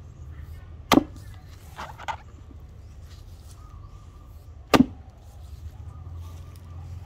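Axe head struck into the top of a wooden chopping stump, two sharp chops about four seconds apart, with a lighter knock between them.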